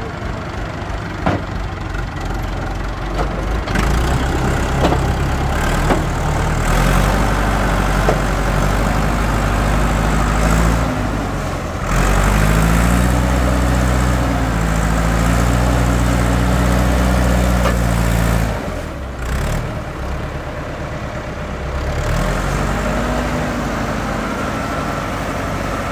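Diesel farm tractor with a front loader running, its engine revving up about halfway through and holding under load for several seconds as the bucket digs and lifts soil, then dropping back, with a second rise near the end. A few sharp clanks of the bucket against stony ground early on.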